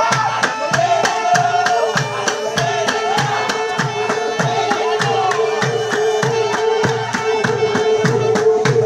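Loud dance music with a fast, steady drum beat, about three beats a second, over a held melody line.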